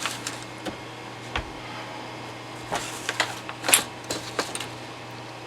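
Scattered small clicks, taps and rustles of tools and parts being handled at a soldering bench, bunched about three to four seconds in, over a steady low hum.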